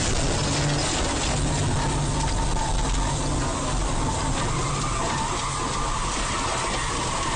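Noise of a moving vehicle as heard through a dashcam: a loud, steady rush with a low rumble underneath and no single crash impact.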